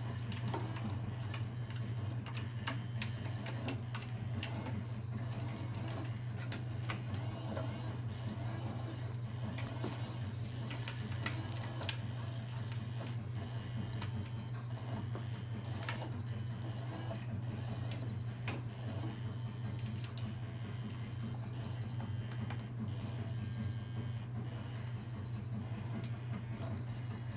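Kittens playing: light scattered taps, scratches and scampering over a steady low hum, with a faint high buzzy pulse repeating about once a second.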